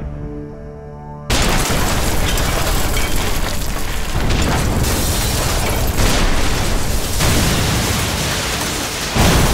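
Explosion sound effects: a sudden massive blast about a second in, followed by a long, dense rumbling tail that swells several times, and another sudden blast near the end.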